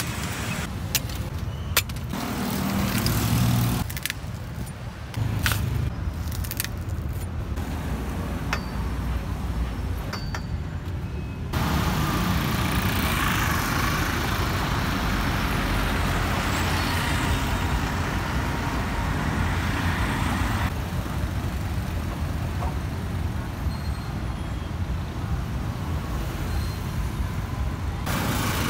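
Street traffic noise with cars and motorbikes passing, loudest in the middle stretch. In the first part a few sharp chops as a long knife strikes into toddy palm fruit husks.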